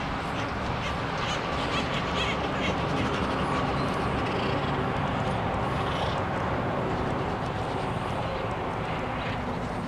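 Steady outdoor background noise with faint bird calls over it.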